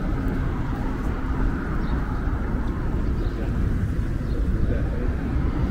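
Steady low rumble of metro station ambience, even throughout with no distinct events.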